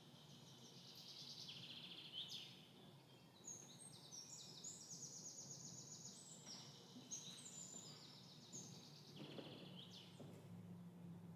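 Faint birdsong: several birds trilling and chirping in quick, overlapping phrases.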